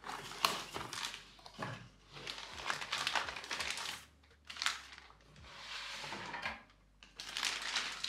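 A motherboard's cardboard box being opened and the board, in its plastic anti-static bag, lifted out. The plastic crinkles and the cardboard rustles in several separate bursts, with a few light knocks.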